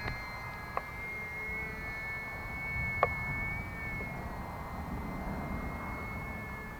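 UMX Timber RC model plane's electric motor and propeller running at a steady high whine, with low wind rumble on the microphone and two short clicks.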